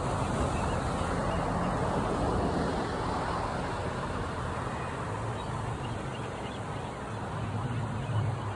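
Steady outdoor background noise with faint bird calls from a flock on the water.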